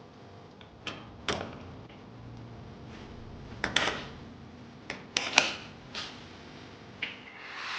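A handful of small, sharp clicks and knocks, about seven spread unevenly over several seconds, with a low hiss between them.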